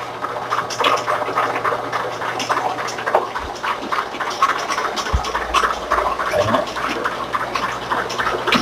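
Busy commercial kitchen noise: dense clatter and handling sounds over a steady machine hum, with one low thump about five seconds in.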